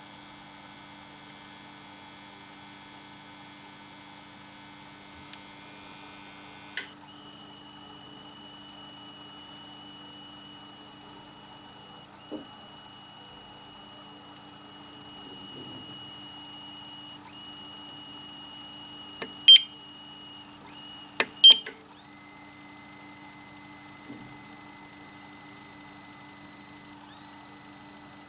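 APC 500 UPS giving off a steady high-pitched whistle made of several thin tones, which shift in pitch a couple of times. A few sharp clicks sound about two-thirds of the way through.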